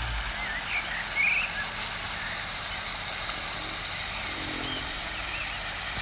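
Steady splashing of a pond's spray fountain, with small birds chirping a few times, loudest about a second in. A brief low call comes about four and a half seconds in.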